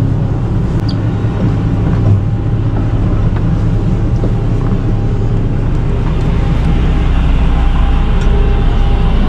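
A motor yacht's engines running steadily at low speed during docking: a loud, even low rumble with a faint hum on top, rising slightly in the last few seconds.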